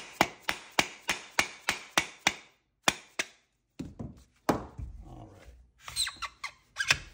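Rubber mallet tapping on the tap rod to drive a copper receiver welding mandrel out of a receiver, about three sharp blows a second for roughly two seconds, then a few slower, heavier blows. After that, metal scraping and light clinks as the loosened parts are handled.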